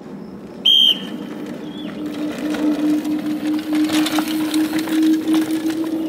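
A short, sharp whistle blast just under a second in. Then the steady buzz of a downhill mountain bike's freehub ratchet as the rider coasts down, growing louder, with tyres knocking over rock.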